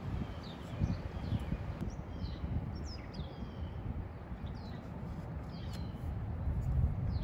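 Small birds chirping over and over in short falling notes, over a steady low rumble.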